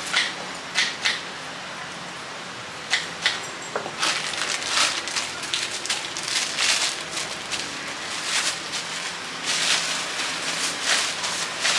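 A knife cutting through fruit onto a wooden cutting board, five sharp knocks in the first few seconds, then a thin plastic bag crinkling and rustling from about four seconds in as it is opened and filled.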